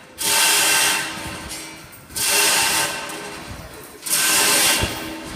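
Hoisting gear raising a 7,150 kg church bell on the command to hoist up to the stop: three bursts of mechanical noise, each under a second long, about two seconds apart.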